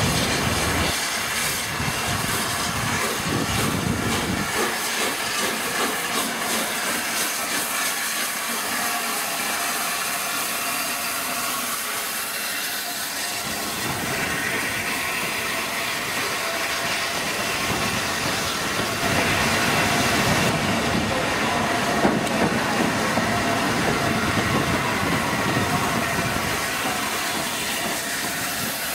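Three-cylinder LNER Peppercorn A1 Pacific steam locomotive 60163 Tornado moving slowly at close range, with a steady hiss of escaping steam, a little louder about two-thirds of the way through.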